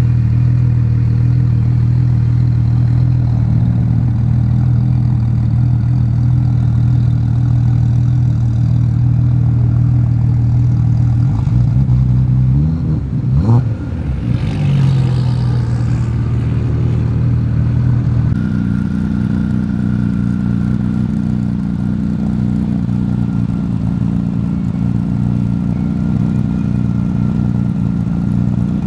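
Tuned Audi S4 B5 with a Hannover Hardcore-built RS4 twin-turbo V6, idling steadily and loudly. About halfway through the sound briefly wavers, and about two-thirds of the way in the idle settles into a changed tone.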